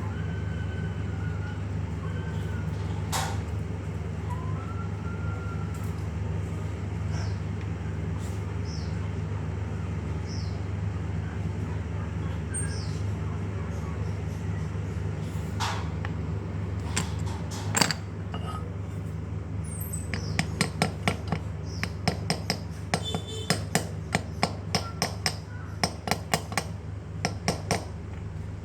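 Metal parts of a handheld cutting machine being tapped and clinked while it is taken apart to replace its bearing. A few isolated sharp ticks come first, then from about two-thirds of the way in a rapid run of light metallic taps, over a steady low hum.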